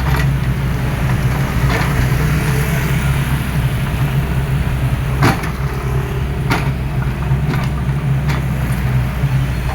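Excavator diesel engine running steadily with a low drone, with a few sharp knocks, the loudest a little past halfway.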